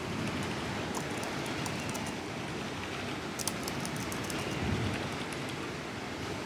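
Muted keyboard typing: scattered faint, short key ticks, bunched together about three and a half seconds in, over a steady background hiss.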